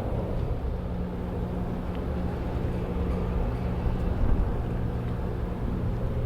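Ro-pax ferry AF Francesca's engines droning steadily as she comes into port, a low hum with a few held tones over a rumbling noise.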